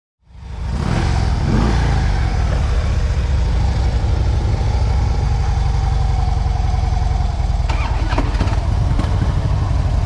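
Harley-Davidson FXDL Low Rider's air-cooled V-twin engine running steadily with a deep, rhythmic low pulse, fading in just after the start; a few short clicks come near the end.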